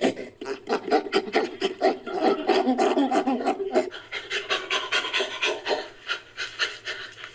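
Synthetic ape-like creature call made from chimpanzee and orangutan recordings: rapid, rhythmic panting grunts, several a second. They are lower and voiced for the first few seconds, then turn breathier and higher.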